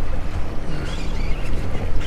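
Wind rumbling on the microphone over a steady low hum, on a boat.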